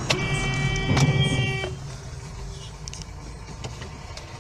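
Car horn sounded once and held for about a second and a half, over the steady road and engine noise of a car driving.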